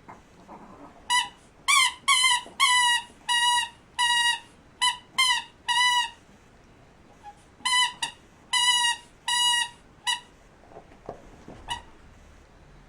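Squeaky dog toy squeaking again and again: a run of short squeaks, a pause, a second run, and one last squeak near the end.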